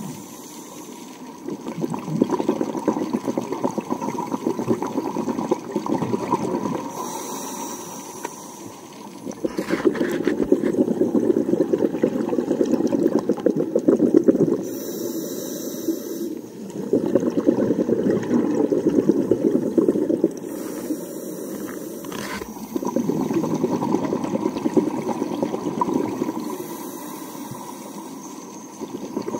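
Scuba diver breathing underwater through a regulator: long bubbling, rushing exhalations of several seconds each, separated by shorter, quieter inhalations, several breaths in a row.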